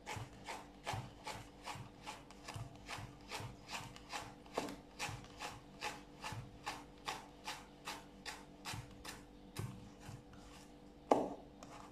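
Kitchen knife cutting carrot into thin strips on a cutting board: a steady run of short scraping strokes, about three a second, then one louder knock of the blade on the board near the end.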